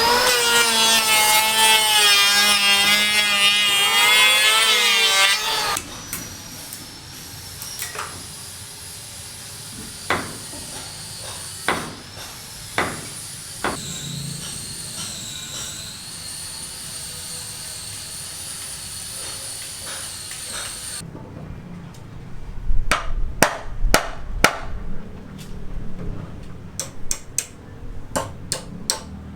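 Building-site work sounds: sharp hammer-like knocks, scattered at first and coming thick and fast in the last several seconds. For the first few seconds a loud wavering pitched tone with many overtones sits over them.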